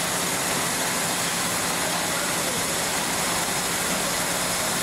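Polishing machine running steadily, a metal pressure-cooker part spinning on its spindle: an even whir with a faint low hum.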